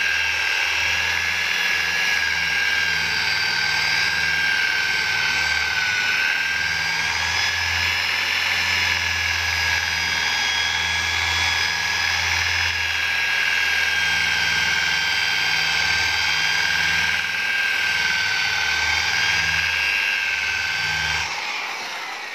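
Electric rotary car polisher with a wool pad running at steady speed on car paint, a high steady whine over a low hum, during the coarse compounding cut to take out scratches. Near the end it is switched off and winds down.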